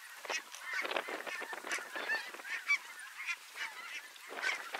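A large flock of snow geese calling overhead: many short, high honks overlapping without a break.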